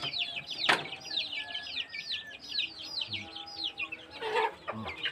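Many young ayam kampung chickens peeping in chorus, a steady stream of quick high cheeps that each fall in pitch. A sharp knock sounds about two-thirds of a second in, and a short lower call comes near the end.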